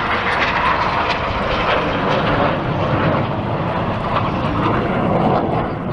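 Steady jet-engine noise from a Red Arrows BAE Hawk trainer flying past trailing display smoke.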